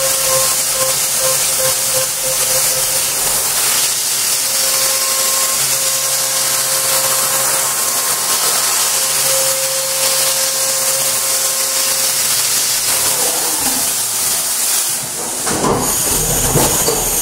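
CNC machining center milling a pocket in a metal block with an end mill: a loud steady hiss with a faint high whine from the spinning cutter. Near the end the whine drops out and the sound changes as the cut finishes.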